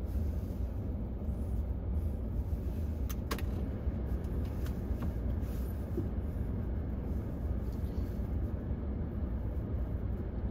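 Low steady rumble of a car idling, heard inside the cabin, with two faint clicks about three seconds in.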